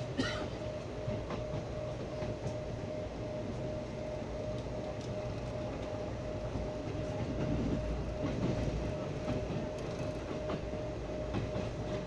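Passenger train running at high speed, heard from inside the coach: a steady rumble of wheels on the track with scattered clicks from rail joints and a steady hum over it.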